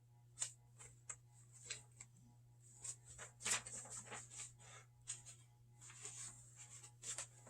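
Faint handling of a paper picture book, pages being turned: scattered soft clicks and short rustles, the loudest about three and a half seconds in, over a low steady hum.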